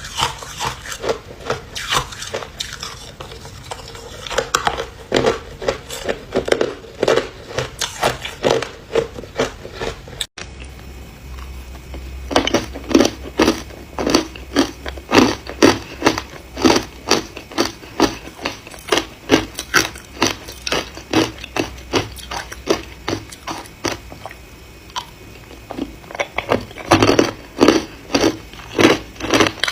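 Ice being bitten and chewed close to the microphone: repeated crisp crunches, about two to three a second, with a brief break about a third of the way in and a softer stretch near the end before the crunching picks up again.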